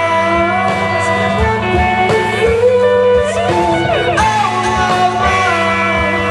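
Rock band playing: an electric guitar lead with bent, sliding notes over bass and a steady drum beat.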